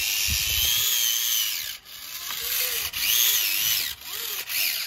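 Electric drive motor and gearbox of a radio-controlled scale-model New Holland tractor whining as it drives up a sand pile, the pitch rising and falling with the throttle, dropping off briefly about two seconds and four seconds in.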